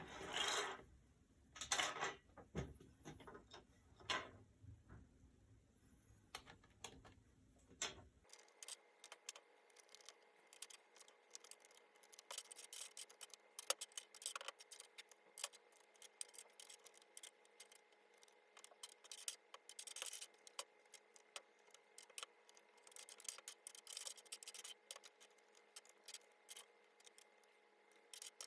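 Typing on an HHKB Professional 2 keyboard's Topre electrostatic capacitive keys: a fast stream of soft key clicks. In the first few seconds there are a handful of louder, fuller strokes; from about eight seconds in the keystrokes come thick and light.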